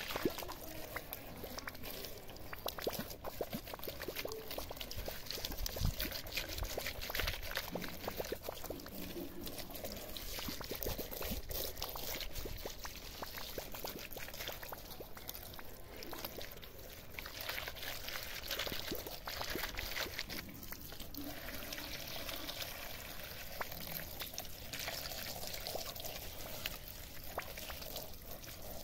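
Stream of water from a hose pouring onto a plastic toy tractor and splashing into a muddy puddle.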